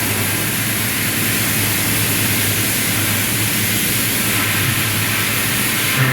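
GF CNC milling machine running a Hitachi PICO 25 cutter through 1.2379 tool steel: a steady, even hiss over a low hum.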